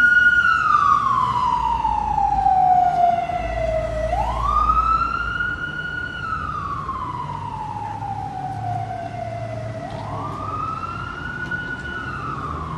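Fire apparatus siren on a slow wail: each cycle climbs quickly in about a second, holds high, then slides down slowly over about four seconds, about three cycles in all. It grows fainter through the first half as the vehicle pulls away, with a low engine rumble underneath.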